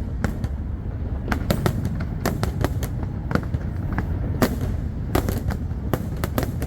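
Aerial fireworks going off: a quick, irregular run of sharp bangs and cracks over a steady low rumble.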